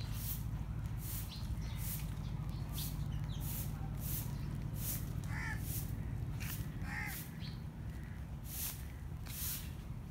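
A crow cawing twice near the middle, over a steady low hum and a regular swishing that repeats about every two-thirds of a second.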